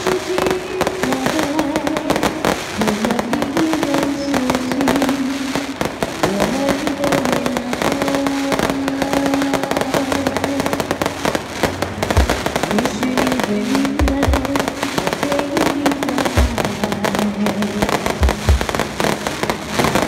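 Aerial fireworks crackling densely and without a break, with several low thumps from about twelve seconds on. Underneath, a pitched tone steps from one held note to the next.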